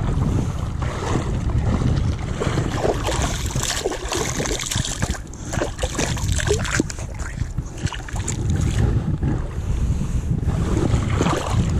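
River water sloshing and splashing around a camera held at the surface as someone wades through a shallow river, busiest from about three to seven seconds in, over a low rumble of wind on the microphone.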